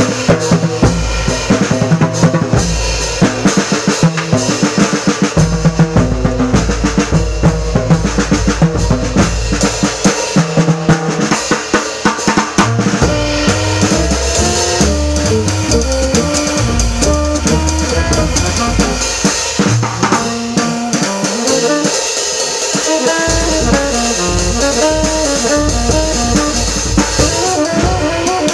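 Jazz drum kit played with sticks: ride and crash cymbals, snare and bass drum, busy and loud. Upright bass notes run underneath, and other instruments play pitched lines in the middle range.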